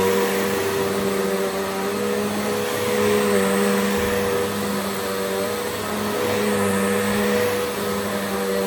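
Bissell Powerforce upright vacuum cleaner running on carpet: a steady motor hum with brush-bar rush, swelling slightly in level twice.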